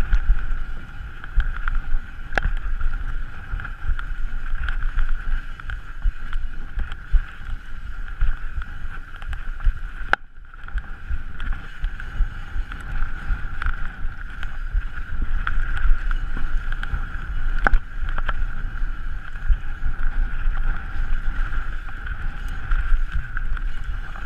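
Mountain bike descending a rough enduro trail: wind rushing on the microphone and a low rumble from the tyres, a steady high-pitched buzz, and scattered sharp knocks and rattles of the bike over rocks. The noise dips briefly about ten seconds in.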